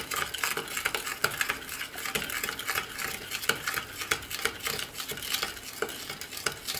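A spoon stirring an oil-and-spice dressing in a small glass bowl, with quick, continuous little clinks and scrapes against the glass.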